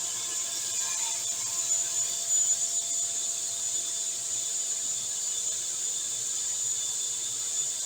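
Sliding table saw with a three-phase motor running steadily, its blade spinning with a high, even whine over a mechanical hum.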